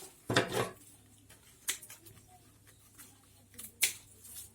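Strips of woven palm leaf being handled, giving a few brief crinkles and rustles, the sharpest near the middle and another pair near the end.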